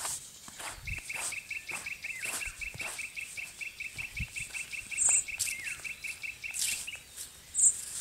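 Footsteps on a leaf-littered forest path, with a small bird's long, even trill of quick repeated notes from about a second in until about seven seconds. Two short high chirps come about halfway through and near the end, the second the loudest sound here.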